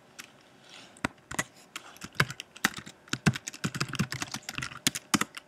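Computer keyboard being typed on: a run of quick, irregular key clicks as a short command is typed into a terminal, starting about a second in.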